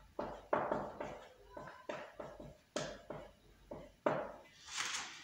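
Marker writing on a whiteboard: a run of quick, irregular strokes and taps, each sharp at the start and fading fast.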